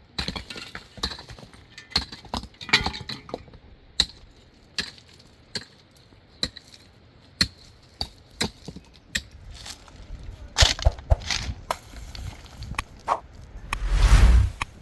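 Stones knocking and clacking against one another at an irregular pace as they are handled and set in a wall, with a louder rough crash of about a second near the end.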